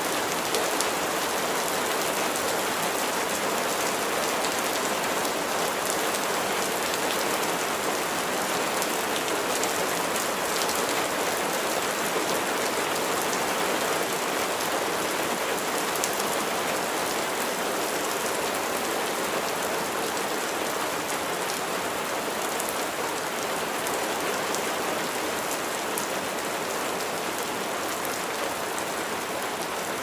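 Steady spring rain falling, an even hiss of rain with single drops ticking faintly now and then.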